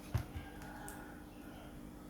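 Two dull knocks in quick succession, about a fifth of a second apart, from handling the laptop and its parts during disassembly, over a faint steady hum.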